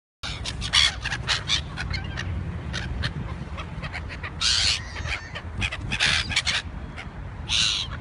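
A flock of black-headed gulls calling close by: many short, harsh squawks one after another, with a few longer cries about halfway through and near the end, over a steady low rumble.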